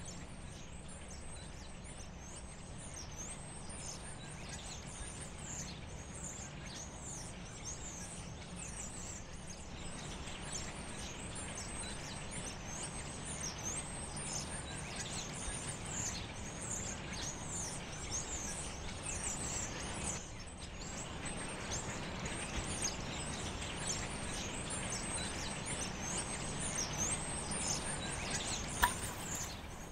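Outdoor ambience: many small birds chirping continually over a steady low background noise, with one sharp click near the end.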